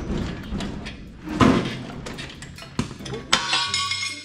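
Metal clunks and scraping as an engine hanging from a hoist is pulled and shifted into a pickup's frame, with the loudest clank about a second and a half in and a short rattling scrape near the end.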